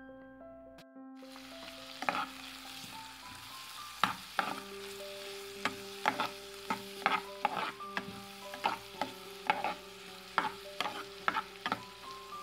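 Chopped shallots and green chillies sizzling as they stir-fry in a frying pan, with a spatula scraping and knocking against the pan in quick, irregular strokes. The sizzle starts about a second in and the stirring about two seconds in.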